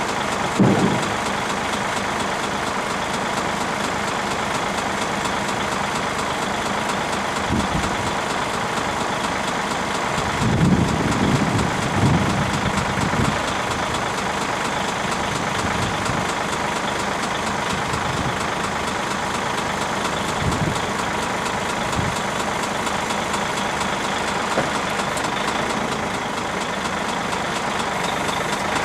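A heavy diesel engine running steadily at idle. It gets briefly louder about a second in, and again for a few seconds around ten seconds in.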